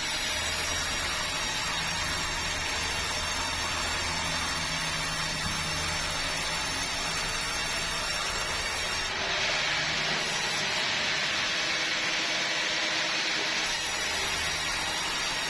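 Engine-driven sawmill running steadily with its saw blade cutting bengkirai timber. The hiss of the cut grows louder from about nine seconds in and eases off again near thirteen and a half seconds.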